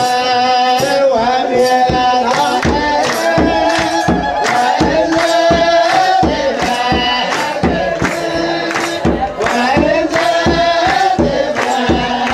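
Music: a melody of long held notes over a steady beat of about two drum strokes a second.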